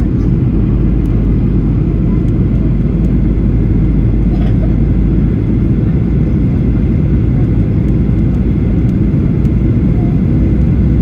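Jet airliner's engines and airflow making a steady, loud, low rumble that holds even throughout.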